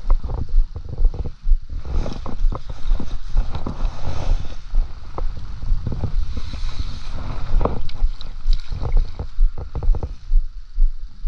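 Wind buffeting the microphone in uneven low rumbling gusts, with scattered knocks and rustles from gear being handled.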